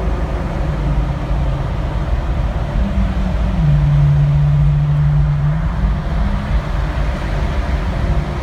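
Ferrari FF's V12 engine running at a low, steady idle. The revs rise about three seconds in and are held there for about two seconds, then fall back to idle.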